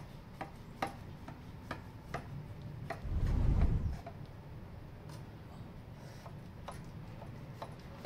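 A knife slicing through a baked pie in a metal baking pan, over a steady light ticking of about two to three ticks a second. A low, dull rumble lasts about a second just after three seconds in and is the loudest sound.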